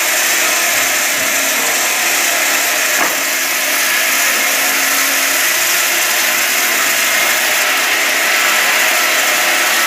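Multi-blade rip saw running steadily under load as a wooden board is fed through it on its belt conveyor, the blades ripping the board into strips with a loud, even noise.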